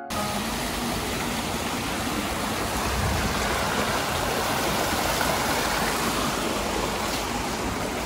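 Small stream rushing and splashing over rocks in little cascades, a steady rush of water.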